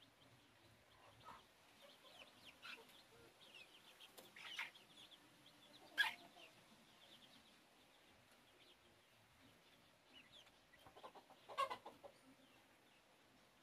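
Young chickens, about two months old, giving faint scattered peeps and clucks, with a few louder calls in the middle and near the end.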